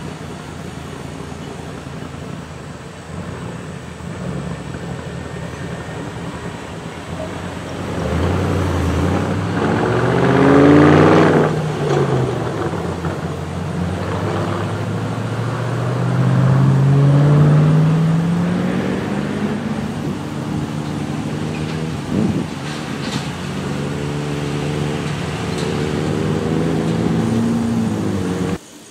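Cars driving over a railroad grade crossing one after another, their engines rising in pitch as they pull away; the loudest passes come about ten and seventeen seconds in. The sound cuts off suddenly near the end.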